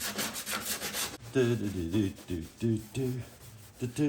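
Sanding on the welded steel cab-corner patch to prep it for body filler: fast, even scraping strokes, about eight a second. About a second in the sanding stops, and a low hum-like sound pulses about three times a second.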